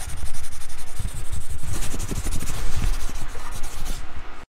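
Brush-on-paper scratching and rubbing, dense and continuous with low thumps. It grows rougher about two seconds in, then cuts off abruptly near the end.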